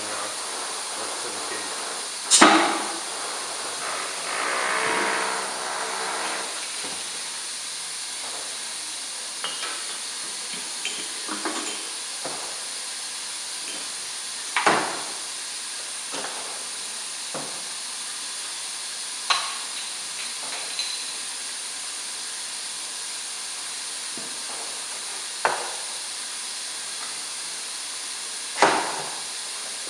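Glass beer bottles and the steel frame and lever of a manual two-bottle beer filler knocking and clanking, five sharp knocks that ring briefly, as bottles are swapped and the filling heads are set. A steady hiss runs underneath.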